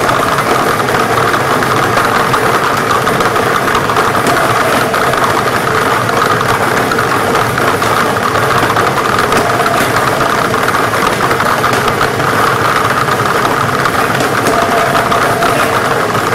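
Lottery ball-drawing machine running steadily, its motor humming while the balls tumble and clatter inside it.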